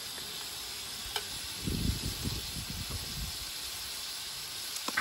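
Beer poured from a bottle into a glass, glugging low and pulsing for about a second and a half near the middle, over a steady hiss.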